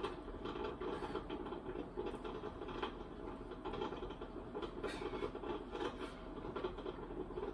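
Steady room hum with scattered light clicks and rustles.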